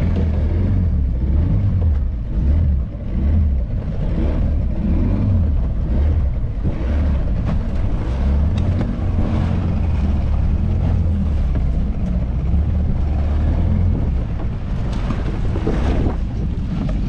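Outboard motor running as a small boat moves along at sea, with wind buffeting the microphone and water rushing past the hull.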